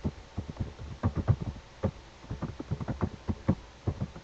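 An irregular run of soft clicks and taps, several a second.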